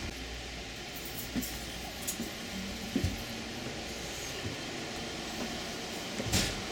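Steady hum of a passenger rail car's interior, with a few light knocks and clunks; the loudest knock comes near the end.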